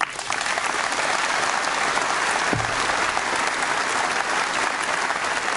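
A large seated audience applauding. The applause breaks out suddenly and keeps up steadily.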